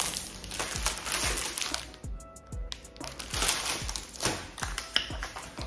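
Plastic packaging bags crinkling as they are handled, over background music with a steady beat.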